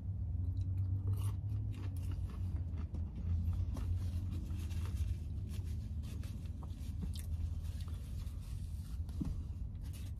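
A man chewing fried cheese sticks, with scattered small clicks and rustles from handling the food, over a steady low hum in a car's cabin.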